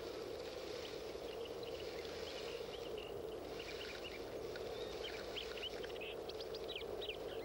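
Thin, high squeaks of nestling woodrats in their grass nest as a Gila monster takes them, coming more often in the second half, over a steady low background hum.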